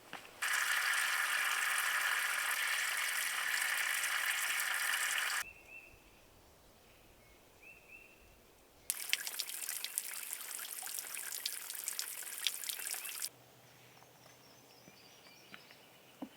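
Water from a low-flowing stream or small waterfall trickling and splashing, in two stretches of several seconds that start and stop abruptly. Between and after them it is quieter, with faint short chirps.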